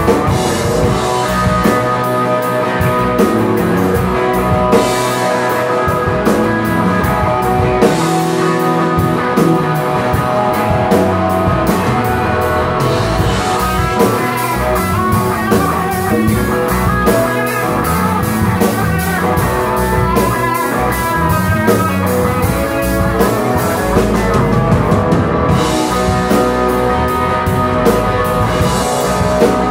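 Live rock band playing: two electric guitars over a drum kit and bass guitar, with steady cymbal and drum hits.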